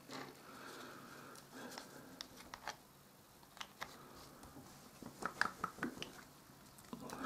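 Faint, scattered clicks and small taps of a paint bottle being picked up and handled, with a few clustered together about five seconds in.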